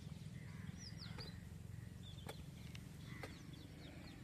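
Faint outdoor ambience: small birds chirping in short falling notes over a steady low rumble, with a few soft taps about a second apart.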